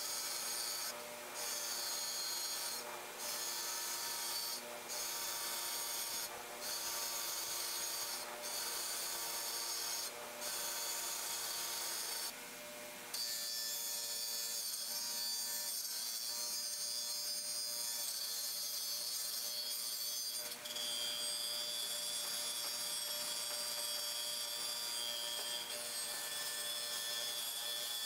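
Bench grinder running with a metal lathe drive pulley pressed against its spinning wheel, a steady scraping hiss over the motor's hum. Early on the scraping breaks off briefly about every second and a half as the pulley is lifted off and turned; later it runs without a break.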